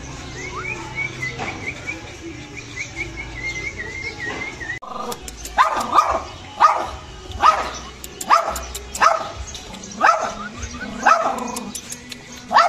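Pekingese dog barking, a run of about a dozen short barks, one every half second to a second, beginning about five seconds in. A faint, thin, warbling high whistle comes before them.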